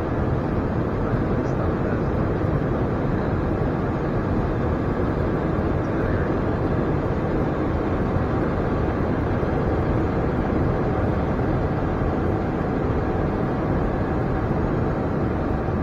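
Steady cockpit noise of an Embraer E175 airliner on approach: an even rush of airflow and engine noise, unchanging throughout.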